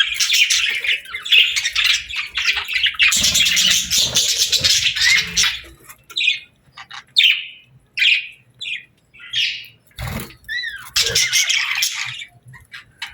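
Pet budgerigars chirping and chattering: a dense warbling chatter for the first half, then separate short chirps and a wavering whistled call, with the chatter picking up again near the end.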